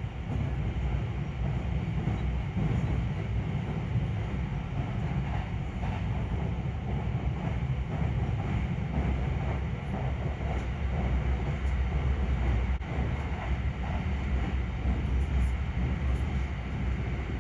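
Moving vehicle running steadily: a deep, continuous rumble under an even wash of noise.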